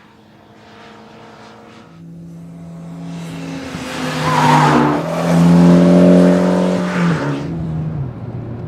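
Mitsubishi Lancer Evo X's turbocharged four-cylinder engine running through a COBB cat-back exhaust. The exhaust note swells to its loudest in the middle, then drops in pitch and level near the end.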